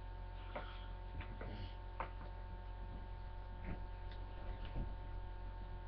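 Steady electrical hum, with a few faint clicks and rustles scattered through it.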